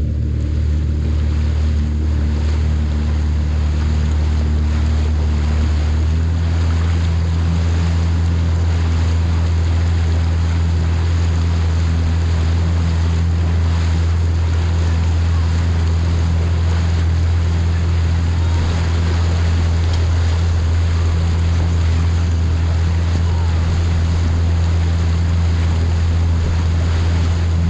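Yamaha VXR WaveRunner's 1.8-litre four-stroke engine running steadily while cruising, a deep drone whose note steps up slightly about six seconds in, over a steady hiss of water rushing past the hull and wind on the microphone.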